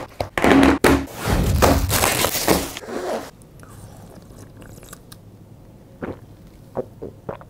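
Plastic clattering and rustling as a pink plastic folding table is set up, then quieter chewing with a few crisp bites.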